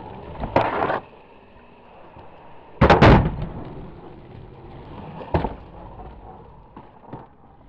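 Skateboard on concrete: a rough scrape of about half a second near the start, then two loud cracks of the board hitting the concrete close together about three seconds in, and another sharp crack a little past five seconds, with the wheels rolling between.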